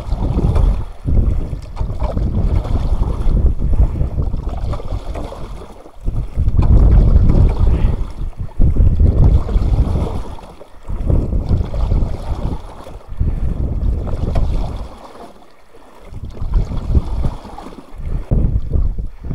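Gusty wind buffeting the microphone in uneven rumbling surges with brief lulls, over water sloshing as a shovel is worked in a long hole cut through lake ice.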